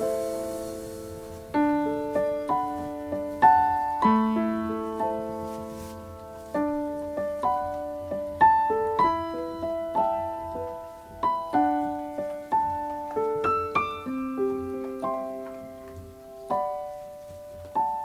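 Background music: a slow, gentle solo piano piece, single notes and soft chords struck one after another and left to fade.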